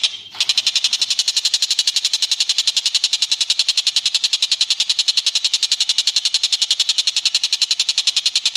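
Recorded bird call from a bird-training track: a fast, even trill of sharp high notes, about ten a second, with a brief break just after the start.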